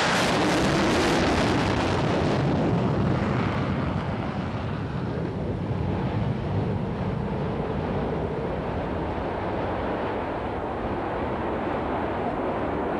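Panavia Tornado's two RB199 turbofans at full afterburner on the take-off roll: a loud jet roar. Its high hiss fades after about three or four seconds as the aircraft pulls away down the runway, leaving a lower rumble.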